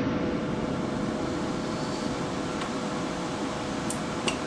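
Steady mechanical hum with two short, sharp clicks near the end.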